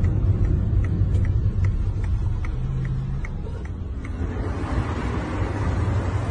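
Car running, heard from inside its cabin: a steady low engine and road rumble, with a regular light ticking of about two to three clicks a second that stops about four seconds in.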